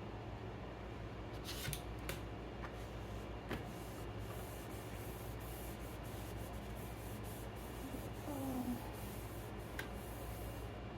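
Cloth wiping a kitchen counter: faint rubbing with a few light clicks and knocks, over a steady low hum.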